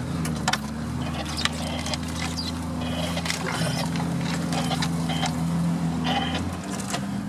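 Off-road 4x4's engine running at low, fairly steady revs while crawling over rough ground, with scattered knocks and short squeaks from the vehicle and the terrain. The revs drop near the end.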